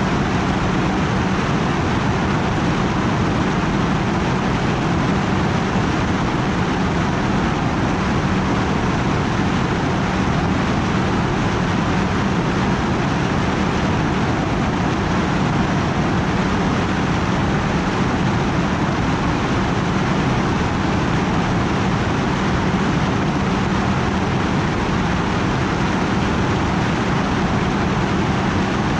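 Propellers and motors of a flying aircraft running at a constant speed: an even rushing noise with a steady low hum.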